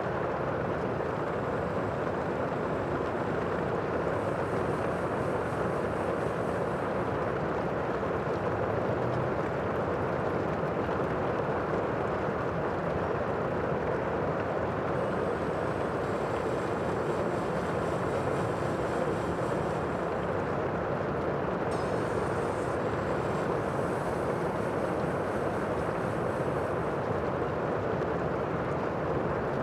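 Steady, even rushing of the sea, with no separate wave breaks standing out.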